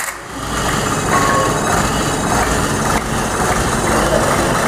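Fiat 508 four-cylinder engine on its first start-up, picking up in the first half-second and then running steadily at idle.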